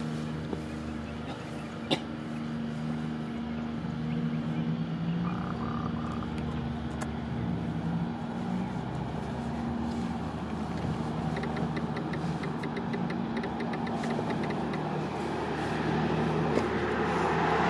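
Construction machinery engine running steadily with a low hum, with a sharp click about two seconds in; the noise swells near the end.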